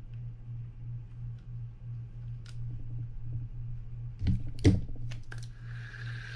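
Sharp clicks and knocks as the handle is fitted to a Daiwa BG30 spinning reel, then from about five and a half seconds the reel being cranked, its freshly greased gears and rotor turning with a steady whirring whine.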